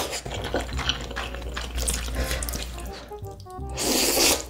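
A person eating black bean sauce noodles: wet chewing and mouth clicks, then a loud wet slurp of noodles near the end. Music plays underneath.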